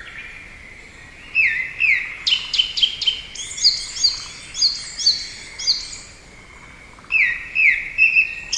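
Bird calling: a quick series of short, high chirps, many sliding down in pitch, then a pause of about a second and another few chirps near the end.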